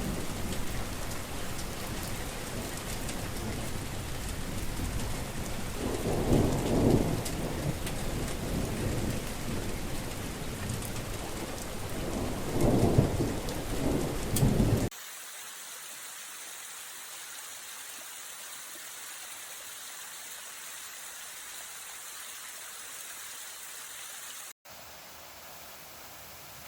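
Heavy rain falling, with two low rolls of thunder, the second near the middle. The rain cuts off abruptly halfway through and gives way to a much quieter steady hiss.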